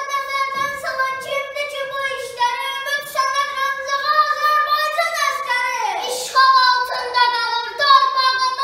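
A child singing alone, without accompaniment, in long held notes that slide from one pitch to the next.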